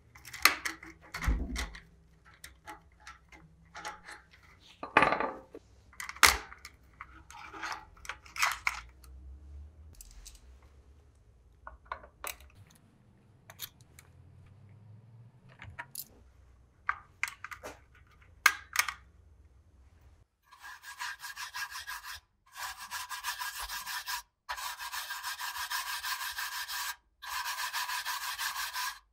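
Scattered metal clicks and taps as the rusty spring scale's hook and case are worked with locking pliers in a vise. About two-thirds of the way in, a hand wire brush scrubs rust off the scale's steel body in four long runs of steady scratching, with short breaks between them.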